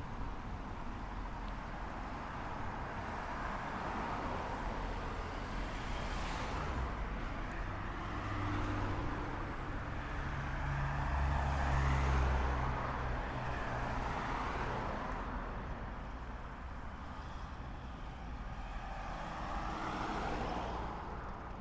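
Road traffic: cars driving past one after another, each swelling and fading. One passing vehicle brings a deeper engine hum about halfway through, which is the loudest moment.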